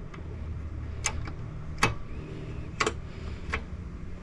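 Outboard motor's mechanical shift linkage and shift shaft worked back and forth by hand, giving sharp metallic clicks about once a second at uneven intervals. A low steady hum runs underneath.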